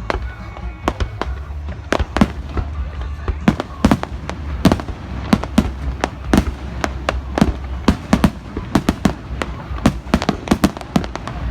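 Fireworks going off in a rapid, irregular string of sharp cracks and pops, several a second, over a low rumble.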